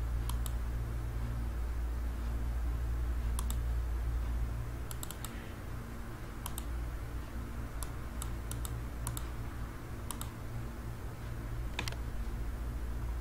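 About a dozen sharp clicks of computer mouse buttons and keys, spread irregularly, several in quick pairs, over a steady low hum that drops in level about four and a half seconds in.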